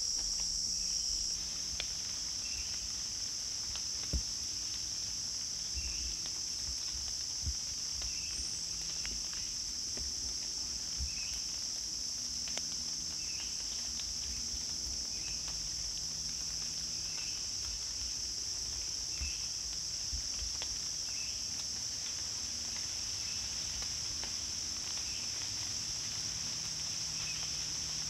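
A steady, high-pitched drone of a late-summer insect chorus in woodland, with a fainter short chirp repeating about every second and a half. A few faint low knocks come through now and then.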